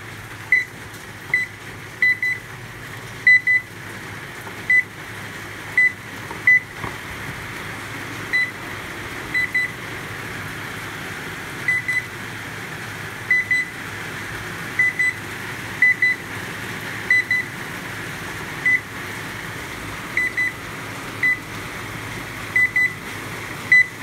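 A Philco microwave control board's buzzer gives a short, high beep each time a membrane key is pressed, singly or in quick pairs, about twenty times at irregular intervals. The beeps show that the keypad responds once the faulty display module, whose leaking LED was blocking the keys, has been removed.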